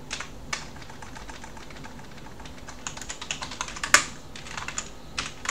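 Typing on a computer keyboard: a few scattered keystrokes, then a quicker run of keys about three seconds in, with one harder key strike near four seconds.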